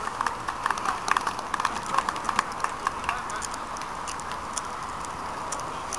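Scattered applause from a small crowd of spectators clapping the batsmen off the field. The claps are dense for the first three seconds or so, then thin out to a few.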